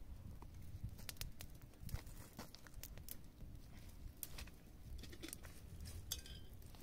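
Small open fire of dry twigs crackling with scattered, irregular sharp pops as the twigs are poked and shifted.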